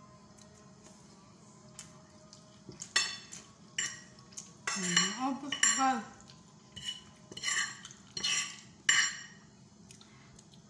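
Metal fork and spoon scraping and clinking against a ceramic plate, gathering up the last of the noodles: a run of sharp clinks and scrapes starting about three seconds in.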